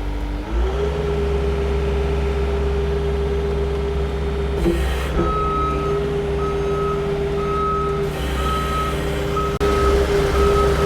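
New Holland L318 skid steer's diesel engine rising to a higher steady speed about half a second in, then its reversing alarm beeping about once a second from around five seconds in as the machine backs up.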